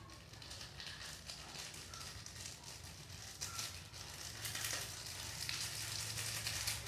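Food frying in hot oil in a pan, a steady sizzle full of small crackles that grows louder toward the end.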